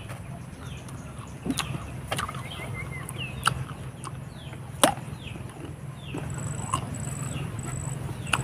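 Crisp crunching bites into raw green fruit: a handful of sharp cracks, the loudest about five seconds in. Over them run repeated short falling bird chirps and a steady low hum.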